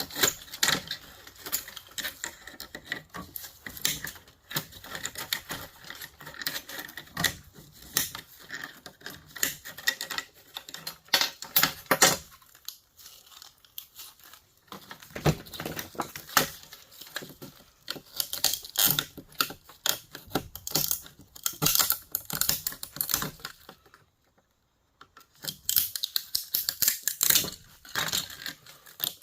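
Hand tools and small metal parts clicking, clinking and rattling while a line conditioner is pulled apart by hand. The sharp clicks come irregularly and fast, ease off for a couple of seconds near the middle, and stop briefly about two thirds of the way in before starting again.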